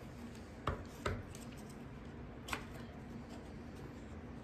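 A plastic takeout food container and utensils being handled: two quick clicks about a second in and another midway through, over a faint steady hum.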